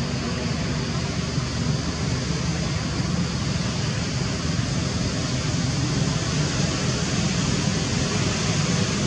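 Steady loud background noise with a low hum beneath it, unchanging and without distinct events.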